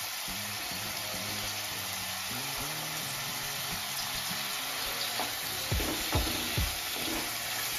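Coconut-and-spice masala with tamarind water sizzling steadily in a non-stick pan as raw anchovies go in. From about five seconds in, a wooden spatula stirs, with several scrapes and knocks against the pan.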